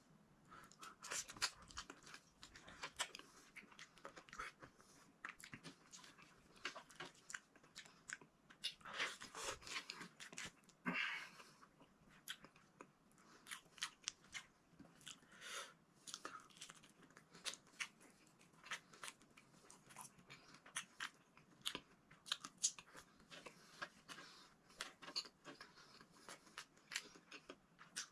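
A person chewing and eating okra and eggplant close to the microphone, with irregular sharp mouth clicks and smacks throughout.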